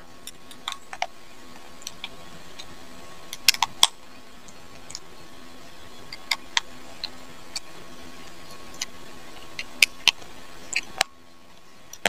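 Scattered small clicks and taps of a screwdriver turning the lever-adjuster screw of an electric hair clipper, metal tool against metal and plastic, at irregular intervals over a faint steady hum.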